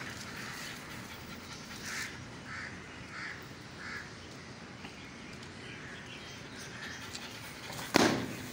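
Four short, faint animal calls over steady outdoor background noise, then a single sharp thump near the end.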